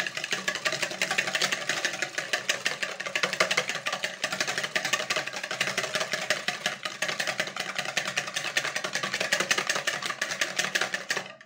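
Metal wire balloon whisk beating raw egg whites in a plastic bowl, a fast, even run of wet clicking strokes as the whites are whipped to a froth. The whisking stops abruptly just before the end.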